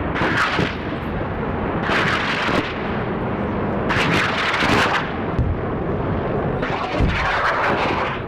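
Dramatic intro sound effect: a loud, noisy rush that swells and falls four times, about every two seconds.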